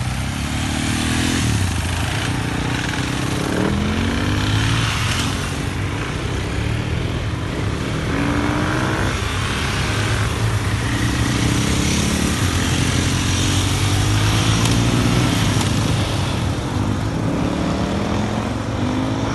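Adventure motorcycle riding on the road, its engine running steadily with the pitch rising several times as it accelerates and shifts gear, over a constant rush of wind and road noise.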